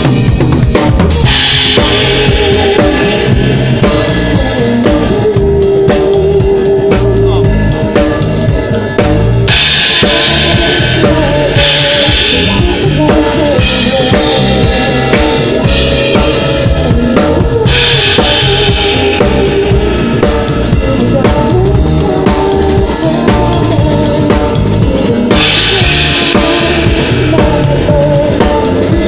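A band playing loud, continuous music with a full drum kit (bass drum, snare and cymbals) driving it, under wavering melodic instrument lines. The high cymbal wash swells and drops back every few seconds.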